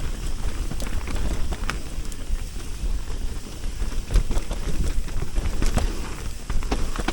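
Mountain bike riding down a dirt singletrack: a steady low rumble of tyres and air against the camera microphone, with frequent short clicks and knocks of the bike rattling over roots and bumps.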